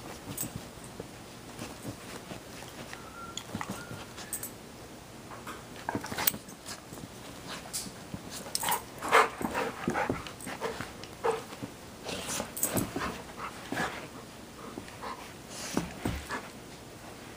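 A Golden Retriever and a Rhodesian Ridgeback puppy play-fighting: scuffling and mouthing on a dog bed, with short whines and growl-like noises scattered through, busiest about nine seconds in.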